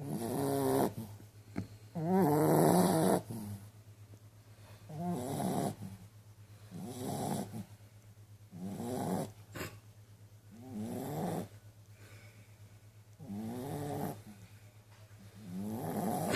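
A dog snoring in slow, regular breaths: eight snores about two seconds apart, each under a second long and wavering in pitch, the second one the loudest. A steady low hum runs underneath.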